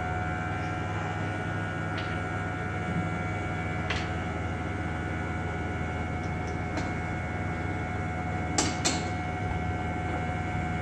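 Steady electrical hum of running lab equipment with a few steady higher tones over it. A few light clicks come as a glass test jar is fitted into the instrument's holder, the loudest a quick double click near the end.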